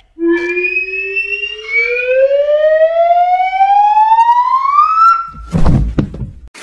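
A cartoon character's long scream that rises steadily in pitch for about five seconds and then holds. About five and a half seconds in, a short, low crash sounds as she falls over.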